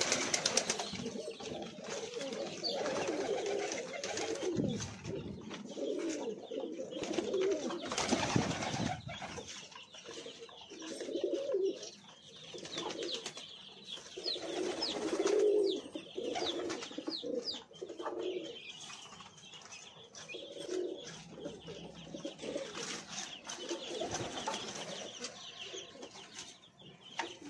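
Fantail pigeons cooing, with low coos repeating every second or two. Faint short high chirps come in during the middle stretch.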